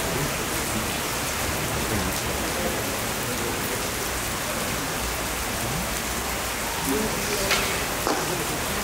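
Steady rain falling, an even hiss. Near the end, two short sharp sounds about half a second apart cut through it.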